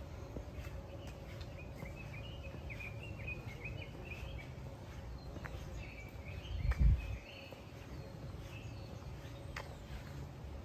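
Small birds chirping in quick runs of short, high notes over a steady low rumble, with a brief, louder low rumble about seven seconds in.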